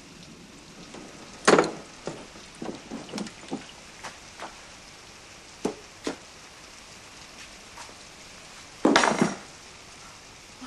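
Scattered knocks and clatters of objects: one louder knock about a second and a half in, a quick run of smaller ones after it, two sharp clicks near the middle, and a louder, longer clatter near the end.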